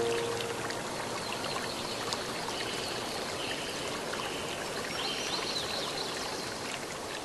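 Steady rushing of a running stream, with faint wavering high notes partway through. A soft held chord fades out just after the start.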